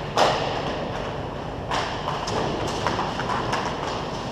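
Hockey sticks and puck knocking on the rink: a sharp crack just after the start and another about a second and a half later, with scattered lighter taps in between.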